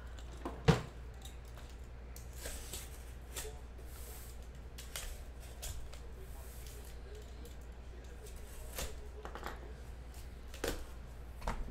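A cardboard shipping case being cut open and handled: scattered cutting and scraping sounds, rustles and knocks, the sharpest knock about a second in.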